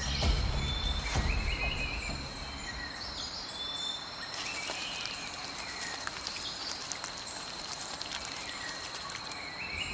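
Tropical forest ambience: a steady high-pitched insect drone with scattered bird chirps and calls. A low rumble fades out in the first couple of seconds.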